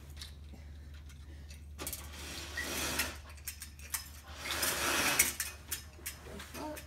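Roller window blind being raised, its roller mechanism whirring and clicking in two spells, over a steady low hum.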